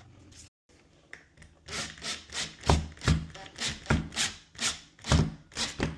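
Door handle and latch hardware being worked by hand: a run of clicks and knocks, about three a second, several with a heavier thump.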